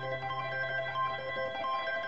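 Quiet music: a low held note under a light melody of short single notes. The low note stops about three quarters of the way through.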